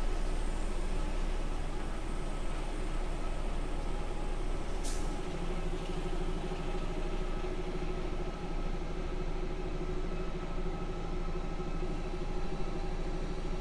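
A 2022 DAF XF 480 truck's six-cylinder diesel engine running steadily at low speed while manoeuvring, with one short hiss of air from the air brakes about five seconds in.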